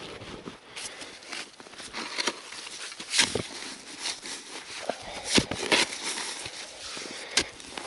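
Shovel digging into snow and earth: irregular scrapes and crunches, the loudest about three seconds in and again around five and a half seconds in.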